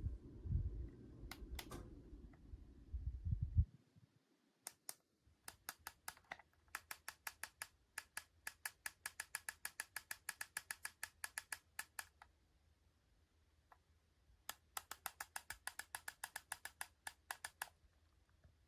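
Low rumbling, handling-type noise for the first few seconds, then two runs of rapid, evenly spaced clicking at about four to five clicks a second: the first lasts about six seconds, the second about three.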